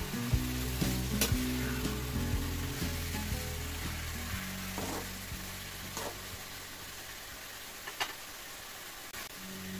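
Pork pieces sizzling in a stainless steel wok while a metal spatula stirs them, with a few sharp clicks and scrapes of the spatula against the pan. The stirring stops near the end and the sizzle goes on more quietly.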